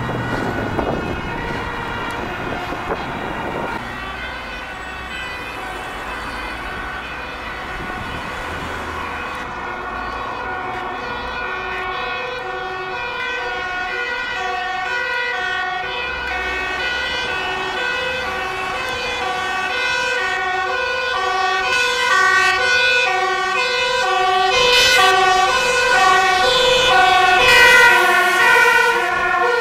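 Dutch fire engine's two-tone siren alternating between a high and a low note, growing louder as the truck approaches. Near the end the truck passes close by, with a loud rush of engine and road noise over the siren.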